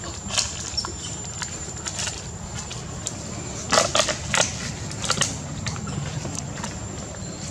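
Irregular crunching and crackling of dry leaves and litter as macaques move about on the ground, with a louder cluster of crunches about four seconds in. A thin, steady high-pitched tone sits behind it.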